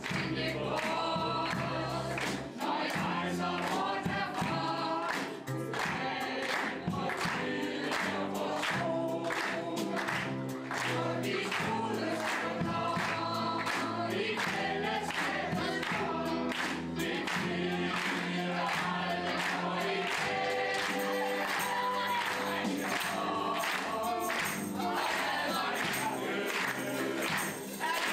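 A mixed group of singers performing a song together, choir-style, with live band accompaniment of acoustic and electric guitars and a steady beat.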